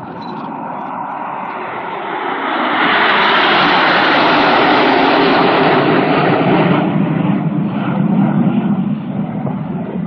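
Formation of BAE Hawk T1 jets flying past. The jet noise swells about two and a half seconds in and is loudest for a few seconds, then drops to a lower rumble as they pass.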